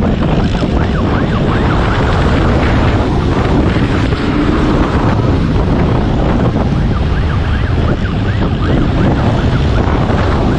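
Wind rushing loudly over the microphone of a vehicle moving fast in pursuit, with engine noise underneath.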